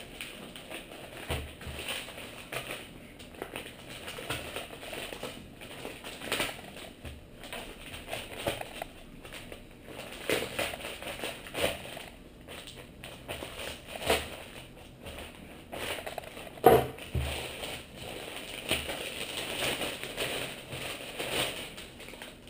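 Plastic mailer bag crinkling and rustling as it is handled and opened by hand, with scattered crackles and one sharp knock about three-quarters of the way through.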